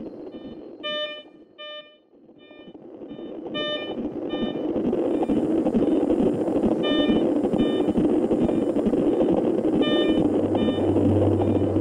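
Electronic hospital monitor beeping at a regular pace, a short electronic beep roughly every half second to second. A steady rushing noise swells in over the first few seconds and becomes the loudest sound, and a low hum joins near the end.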